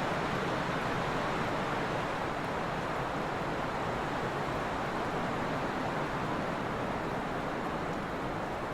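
Steady trade wind blowing, an even rushing noise without distinct gusts.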